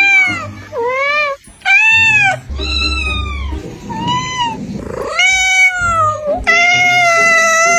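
Domestic cat meowing repeatedly: about seven drawn-out meows that rise and fall in pitch, the last one long and held.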